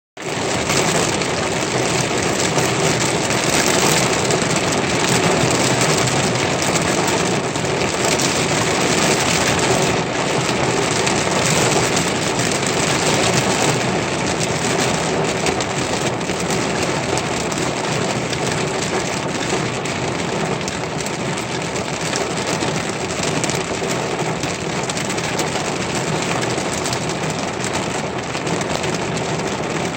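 Heavy rain falling as a steady, dense hiss that starts suddenly.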